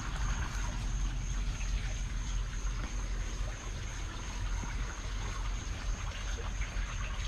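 Garden pond water trickling steadily, with a thin, steady high-pitched tone running above it.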